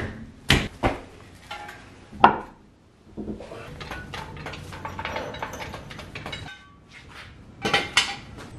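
Sharp metal clanks of tools and parts on a car's rear brake hub and a steel floor jack, four in the first two and a half seconds and two more near the end, with about three seconds of steadier rattling between them as the jack is worked under the car.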